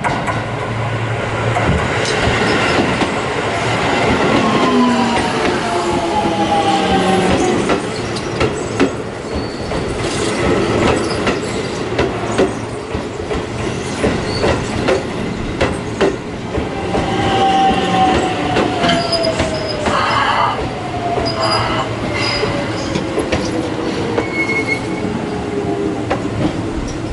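Keio 8000 series electric train arriving at close range, its Hitachi GTO inverter whining in tones that fall slowly in pitch as the train brakes to a stop. The wheels click and rumble over the rail throughout.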